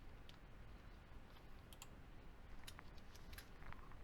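Faint, scattered clicks of a computer mouse and keyboard keys, a handful spread irregularly over a few seconds.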